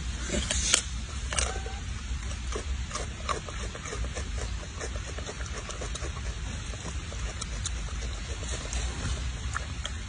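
A macaque chewing on a raw cucumber: irregular wet crunching clicks, most frequent in the first couple of seconds, over a steady low rumble.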